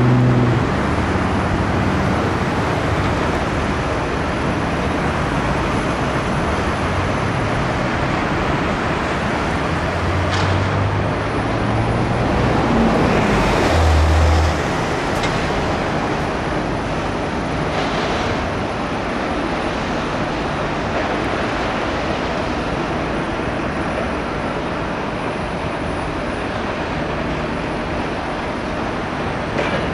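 Steady loud outdoor noise of traffic or machinery, cutting in suddenly, with low hums that shift in pitch through the first half and a swell about halfway through.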